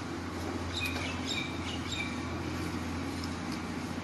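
Steady low hum of a four-roll plate bending machine running, with a few short high chirps about a second in.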